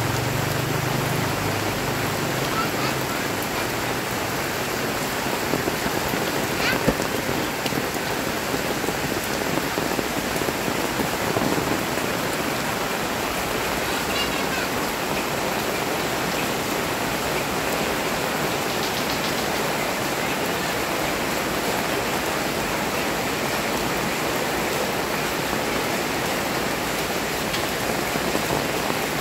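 Heavy rain falling steadily on a paved lane and on stall awnings and tarps, a dense, even hiss with a few sharper drip ticks.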